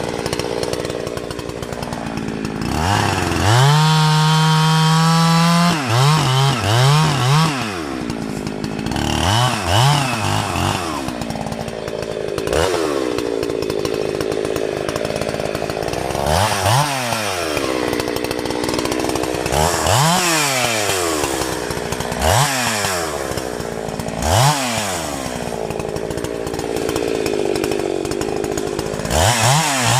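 Two-stroke chainsaw engine held at full throttle for about three seconds early on. It is then blipped up and dropped back to idle again and again, a rise and fall every two to three seconds.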